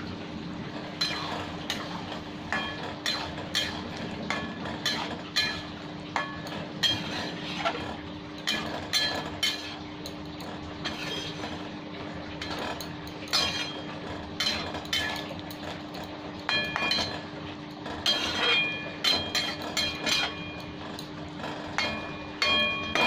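Metal spatula stirring chana dal and potato curry in a metal kadai: frequent clinks and scrapes against the pan, some ringing briefly. A steady low hum runs underneath.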